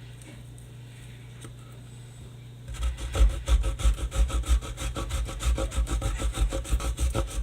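A blade sawing back and forth into the tough casing of a firework mortar shell, in rapid scraping strokes that start about three seconds in, over a low steady hum.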